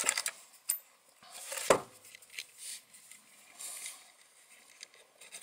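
Wires and a clear plastic robot-car chassis being handled: light clicks and scrapes, with one sharper knock a little under two seconds in.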